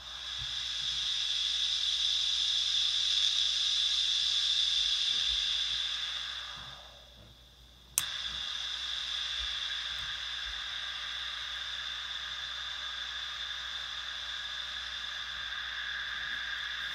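Noise Toaster analog synth's white-noise generator hissing through its low-pass filter and a small speaker. The hiss swells in, fades away about six to seven seconds in, then returns abruptly with a click about eight seconds in; near the end a lower part of the hiss grows louder as the filter knobs are turned.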